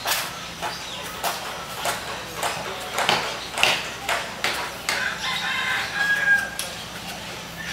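A rooster crowing about five seconds in, over a series of sharp, irregular knocks.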